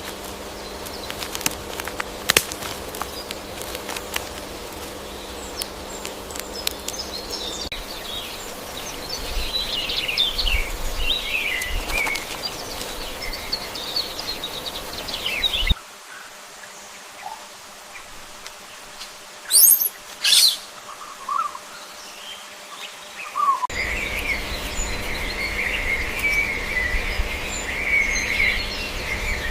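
Small birds chirping and twittering, in segments that change abruptly. Two loud, sharp high calls come close together near the middle.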